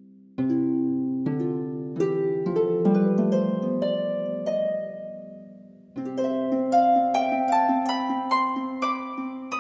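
Background music of plucked string notes: a phrase of chords and notes that ring and fade, then a new run of notes rising in pitch about six seconds in.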